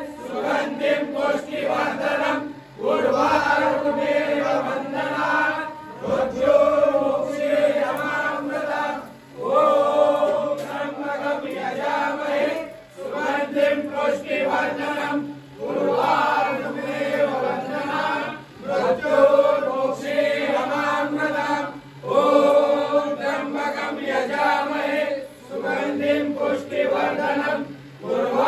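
Men chanting a devotional hymn together during a Shiva abhishek puja, in phrases of about three seconds with short breaks between them.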